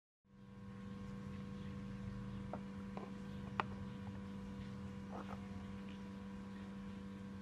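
A steady electrical hum, with a few light clicks and taps, the sharpest about three and a half seconds in, from metal pliers and a knife blade knocking against a pan of liquid.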